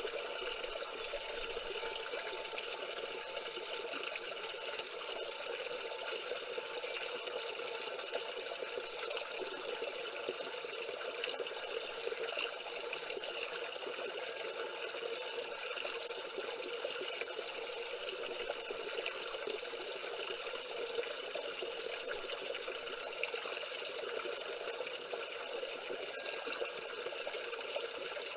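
Small stream cascade, water splashing and running over stones in a steady, even rush.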